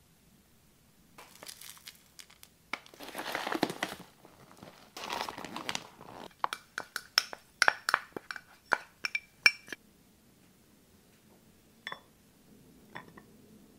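Crinkling of a plastic food bag being handled, followed by a quick run of about a dozen sharp clinks on a ceramic bowl, and two light taps near the end.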